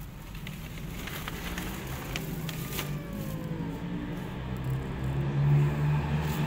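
Low, steady engine rumble of a motor vehicle that grows louder in the second half, with a few faint clicks.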